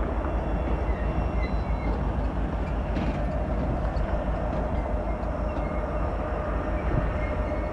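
Union Pacific freight train rolling past at close range: a steady heavy rumble with a constant mid-pitched tone and faint brief high squeaks.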